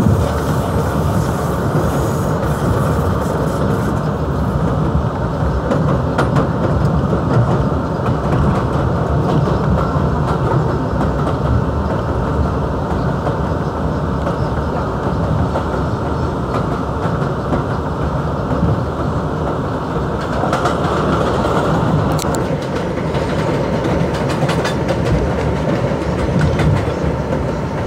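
New York City R62A subway car running at speed on elevated track: steady wheel-and-rail running noise. A train on the adjacent track passes close alongside near the end.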